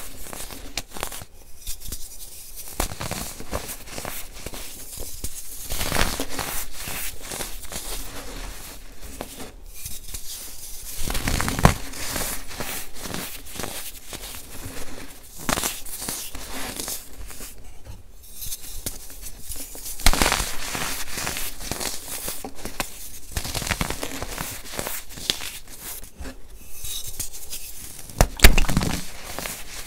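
Pressed baking soda bars being crushed and crumbled by hand into loose baking soda powder: a dense, continuous crunching crackle, with a few louder cracks as bars break, the loudest near the end.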